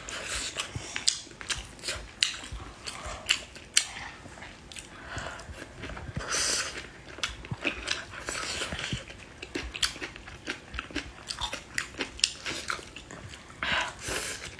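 Close-up eating sounds: chewing and biting with many short wet mouth clicks, and a few longer sucking noises as food is drawn into the mouth from chopsticks, about six seconds in and near the end.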